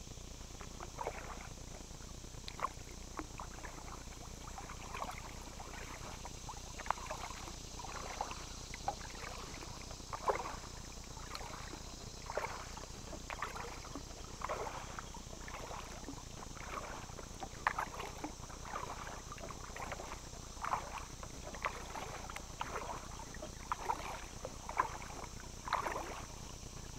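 Kayak paddle strokes: the blades dip and splash into calm water at about one stroke a second, with drips in between.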